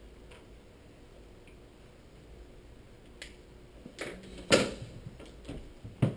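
Room quiet at first, then a handful of sharp plastic clicks and knocks over the last three seconds, the loudest about four and a half seconds in. This is a dry-erase marker being handled and set down at the whiteboard's tray.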